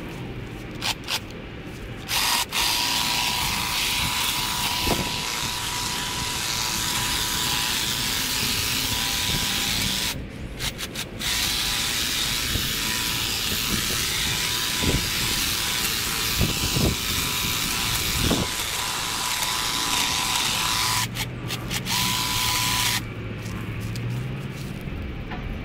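Stihl hedge trimmer running as it cuts back an overgrown bush: a few short blips at first, then long runs with a brief stop about ten seconds in and another short one near the end, before it shuts off shortly before the end.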